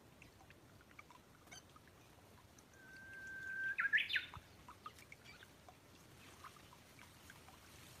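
Brown-eared bulbul calling once about three seconds in: a held even whistle of about a second that breaks into a quick rising note at the end. Faint scattered chirps come before and after it.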